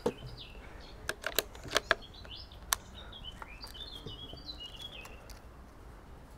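A quick run of sharp metallic clicks and knocks over the first three seconds, loudest about two seconds in, from the handling of a CO2 bolt-action air rifle on its bipod. Small birds chirp through the middle.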